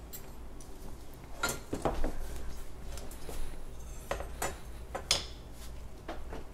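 Dishes and utensils being handled: a few separate clinks and knocks, spread out over several seconds.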